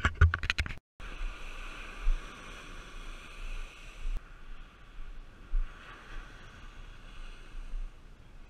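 Ocean surf washing up the beach, with wind rumbling on the microphone in uneven gusts.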